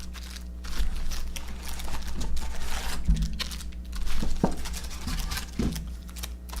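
Packs of baseball cards and their cardboard box being handled: irregular crinkling and rustling of wrappers with light knocks and clicks.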